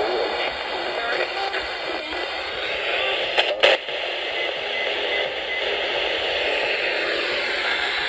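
Weather alert radio's speaker hissing with steady static while it is being tuned, with no broadcast coming through. Two sharp clicks of handling or button presses come about three and a half seconds in.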